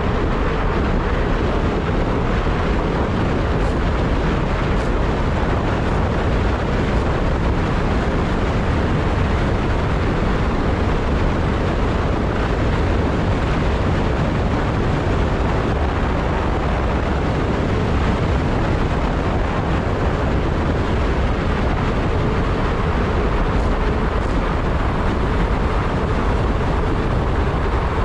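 Steady rushing wind noise on the microphone of a moving ride, with low rumble and no clear engine note.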